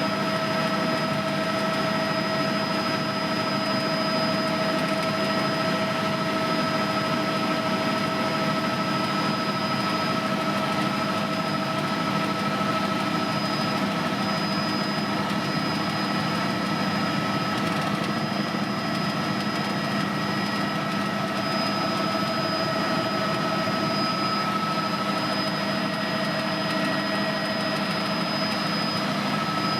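Tour helicopter in flight, heard from on board: a constant rush of engine and rotor noise with a steady whine.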